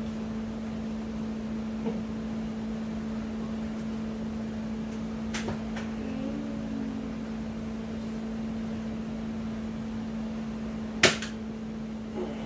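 A Bug-A-Salt spring-air salt gun fires once near the end with a single sharp snap, shooting salt at close range into a seated person. Earlier there are a couple of faint clicks, over a steady low hum in the room.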